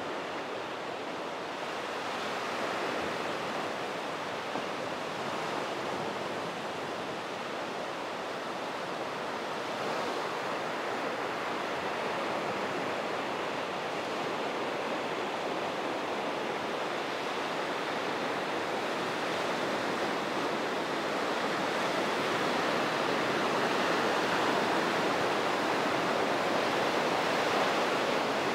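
Ocean surf breaking and washing up on a sandy beach: a steady rush of waves that grows a little louder toward the end.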